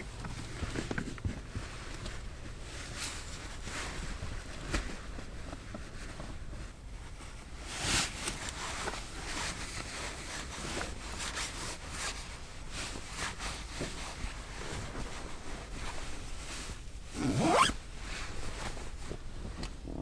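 Close-up clicks and rustles of gear being handled, with a louder burst about 8 seconds in and a zipper pulled quickly near the end.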